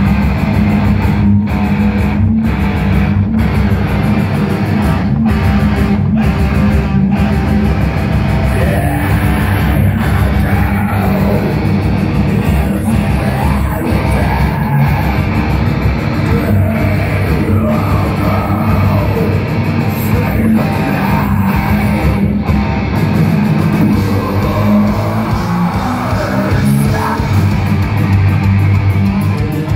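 Black metal band playing live, recorded from the crowd: heavily distorted electric guitars, bass and drums in a dense wall of sound, with harsh screamed vocals over it.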